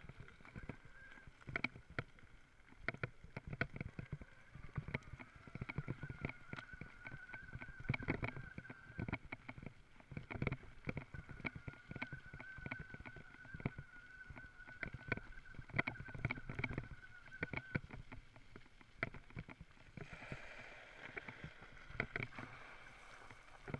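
Electric mountain bike rolling down a gravel track: tyres crunching over stones with frequent knocks and rattles from the bike over bumps, and a steady high whine through much of the ride that fades out near the end.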